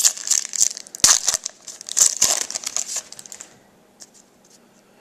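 Foil wrapper of a 2010-11 SP Authentic hockey card pack being torn open and crinkled by hand: a rapid run of crackles that stops about three and a half seconds in.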